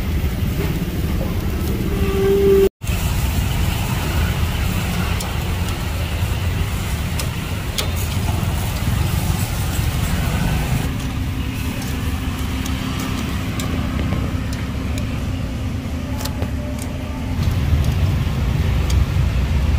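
Steady rumble of road traffic from vehicles passing close by, with a vehicle's engine hum held for several seconds midway. The sound cuts out for an instant about three seconds in.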